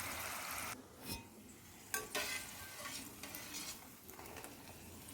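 Puris deep-frying in hot oil: a steady sizzle that drops off abruptly a little under a second in, then fainter sizzling with a few light clicks.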